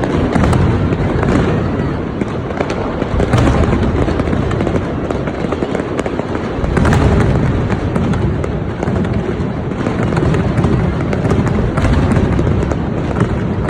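Fireworks display: a dense, continuous run of bursts and crackles, with shells going off in quick overlapping succession.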